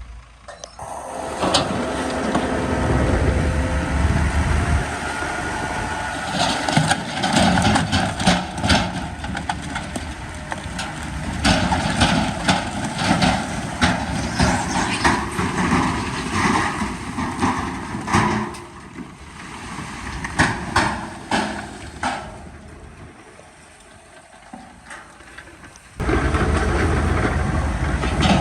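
Heavy earthmoving machinery running, with many sharp metallic clanks and knocks over the engine for much of the time. The machinery quiets for a few seconds, then a steady low engine rumble cuts in suddenly near the end.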